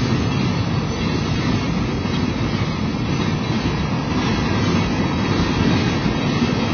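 Freight train of flatcars loaded with military trucks rolling past, a steady, unbroken noise of steel wheels running on the rails.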